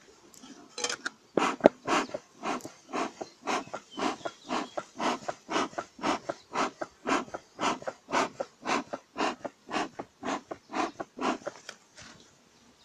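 Bee smoker's bellows being pumped over and over, about two puffs a second, each a short whoosh of air.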